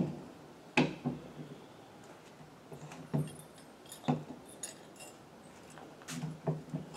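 Irregular knocks and a few light metallic clinks from a camper's rear ramp door being handled and unlatched by hand.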